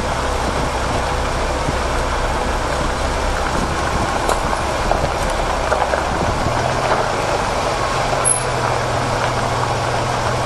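Vehicle engine running steadily, heard from inside the cab. About six and a half seconds in, its low hum steps up in pitch.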